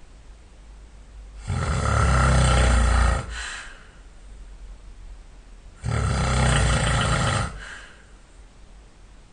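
A sleeping man snoring loudly: two long, rough snores about four seconds apart, each followed by a brief breath out.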